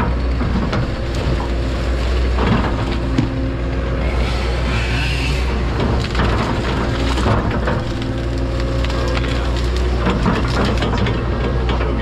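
Excavator engine running steadily, heard from the operator's cab, while the bucket and hydraulic thumb grab and crush brush and logs, with repeated cracking and snapping of wood.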